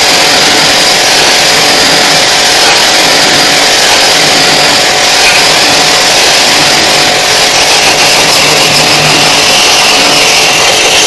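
Pressure washer running loudly and steadily, its jet of water spraying onto the plastic blower wheel of an air conditioner's indoor unit.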